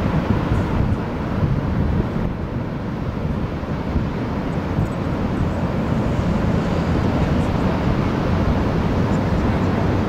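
Heavy ocean surf breaking and rolling ashore as a steady low rumble, with wind buffeting the microphone.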